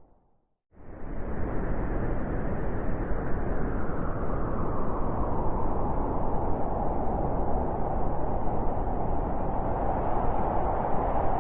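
Steady winter wind, a dense rushing noise strongest in the low and middle range. It cuts in suddenly after a moment of silence at the start and then holds steady.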